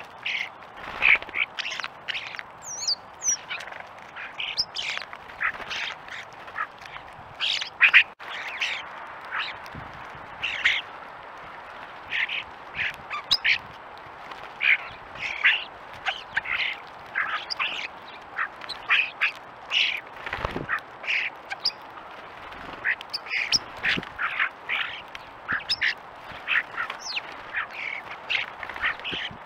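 A flock of European starlings giving harsh, squawky calls while feeding: many short calls in quick, irregular succession.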